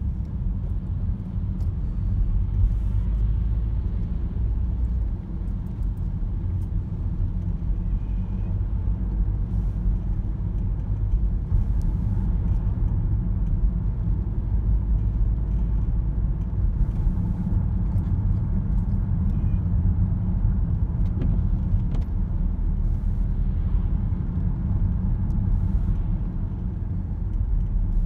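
Car driving, heard from inside the cabin: a steady low rumble of engine and tyres on a wet road.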